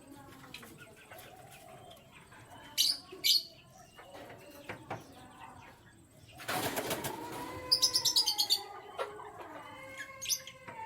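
Caged birds calling: low wavering calls under sharp high chirps about three seconds in, a flutter of wings around six and a half seconds, then a fast high trill of about ten notes.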